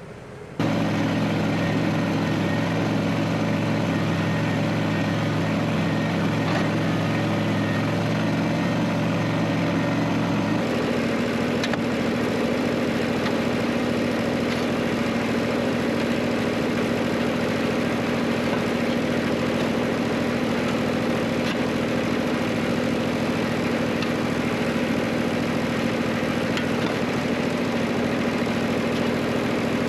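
An engine running steadily. It starts abruptly, and its tone shifts to a steadier, higher-pitched note about ten seconds in.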